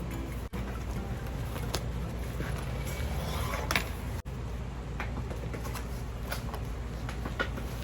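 Steady low background rumble with scattered light taps and clicks.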